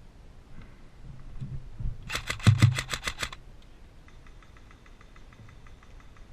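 Airsoft gun firing a full-auto burst of about ten rapid shots, roughly nine a second, followed by a second, fainter and longer burst of rapid shots.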